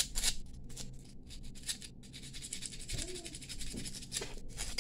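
Light, irregular scratching and rubbing of a small hand file on the cut ends of a thin brass bangle, deburring the edges so nothing is left sharp.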